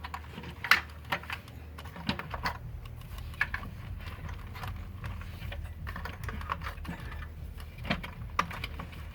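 Scattered light clicks and knocks of hands and tools working loose parts in a car's engine bay, irregular and not rhythmic, over a steady low hum.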